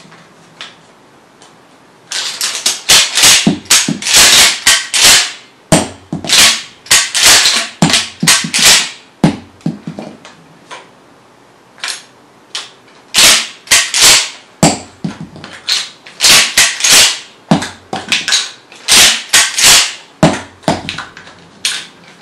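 Mossberg 500 pump-action shotgun being worked by hand: sharp metallic clacks of the fore-end racking the action back and forth, in quick clusters separated by short pauses. After about two seconds of near quiet, the clacks start and repeat through the rest of the stretch.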